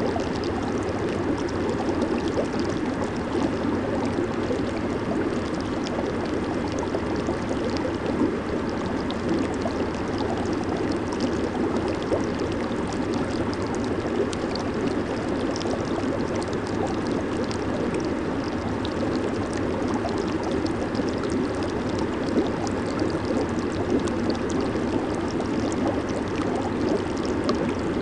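Water in a running jacuzzi bubbling and churning: a steady, unbroken rush of water with fine crackling of small bubbles.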